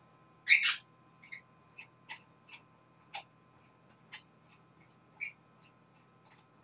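A series of short, irregular clicks and taps, the first, about half a second in, the loudest, over a faint steady hum.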